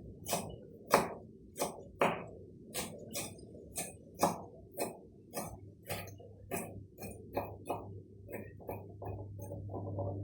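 Knife chopping on a cutting board: a steady run of sharp strokes, about two a second, getting quicker near the end. A low steady hum comes in about halfway through.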